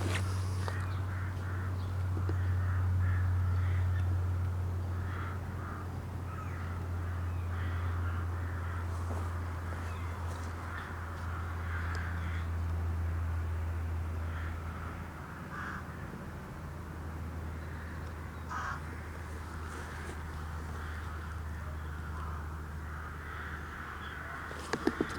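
Birds calling again and again, in short harsh calls, over a steady low hum.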